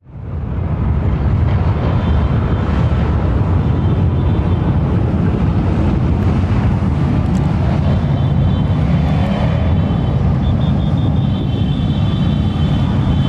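A steady low rumble of many motorcycle engines running together, with no break.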